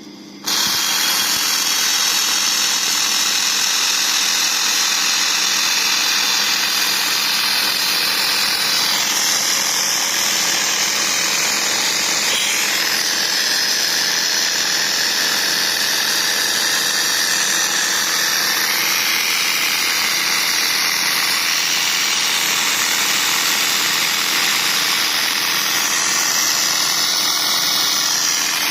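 Laser cleaning and welding equipment working on metal: a loud, steady hiss with a faint machine hum underneath, starting about half a second in.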